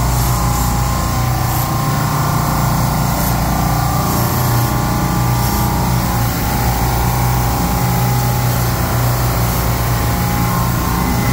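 Semi-hermetic Bitzer compressors on a commercial refrigeration rack running, a loud, steady machine hum that stays constant throughout.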